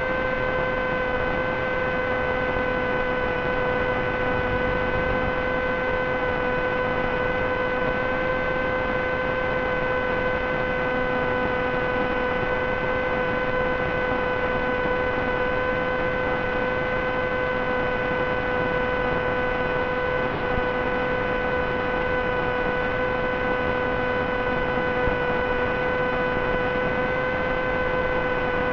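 A steady electrical hum with a row of even overtones over a constant hiss, unchanging throughout.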